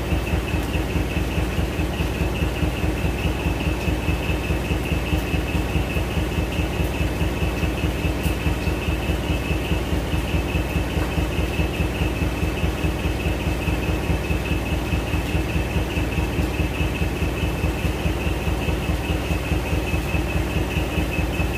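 Mini dump truck's engine idling steadily, an even rapid throb with a steady high whine alongside.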